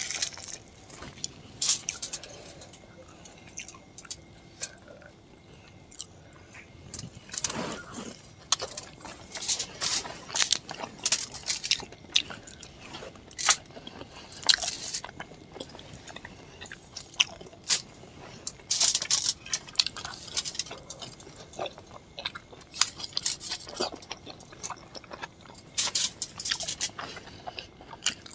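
Close-miked eating sounds: bites and chewing of luchi (puffed fried bread) soaked in chicken curry, with irregular sharp mouth clicks and crackles.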